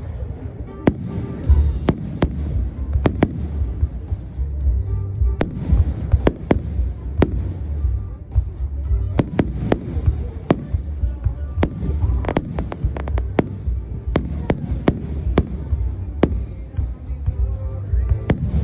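Fireworks display: aerial shells bursting in a rapid, irregular series of sharp bangs over a continuous low booming rumble.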